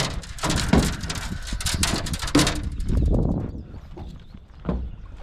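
A quick run of irregular knocks and rattles over a low wind rumble, thinning out after about three seconds.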